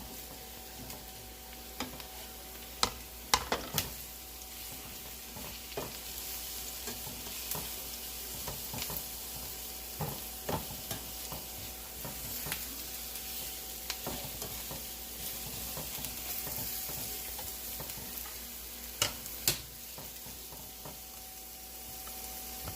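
Vegetables sizzling in hot oil in a pan while being stir-fried, a utensil clicking and scraping against the pan as they are stirred, with a few sharper knocks, two close together near the end.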